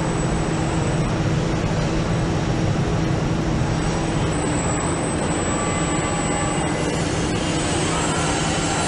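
Automated assembly-line machinery running in a factory hall: a steady mechanical noise with a low hum and a faint high whine. The texture shifts slightly about seven seconds in.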